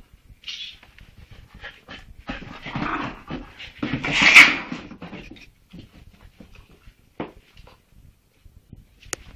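Dog sounds from a Leonberger puppy and a Chihuahua: scattered short noises, with a louder, denser stretch about two to five seconds in that peaks around four seconds.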